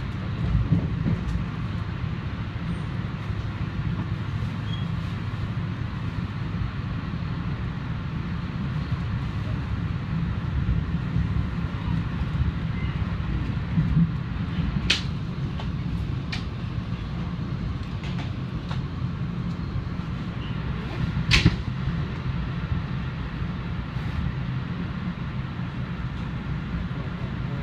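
Passenger train running at speed, heard from inside the car: a steady low rumble of wheels on the track, with a few sharp clicks, the loudest about 21 seconds in.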